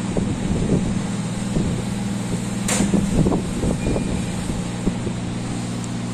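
Electric pottery wheel motor running with a steady low hum, with scattered irregular soft knocks and one brief sharp hiss-like noise a little under halfway through.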